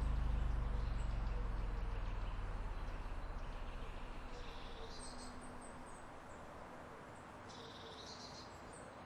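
Federal 508 rotating mechanical siren winding down at the end of its test: a low hum that fades away over about six seconds. High chirping comes in twice.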